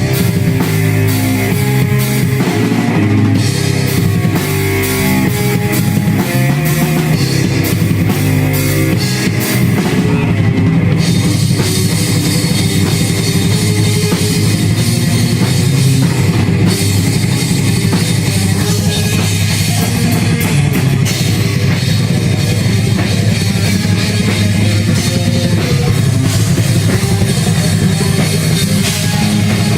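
Heavy metal band playing: a drum kit and guitar riff. About a third of the way in, the cymbals come in and ring steadily over the rest.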